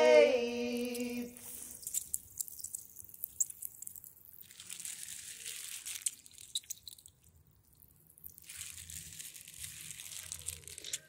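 A sung word trails off about a second in. Soft crunching and rustling handling noise follows, in two spells with scattered sharp clicks.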